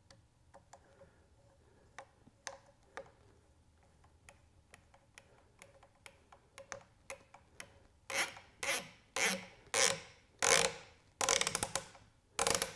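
Long M5 screw being turned with a hex driver into a plastic ear, cutting its way in: faint clicks at first, then from about eight seconds in a quick series of about eight loud scraping strokes, one with each twist of the driver.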